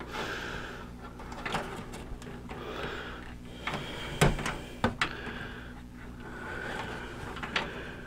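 Cables and plastic connectors being handled and shifted inside a PC case: rustling with a few sharp clicks and knocks, the loudest about halfway through, over a faint steady hum.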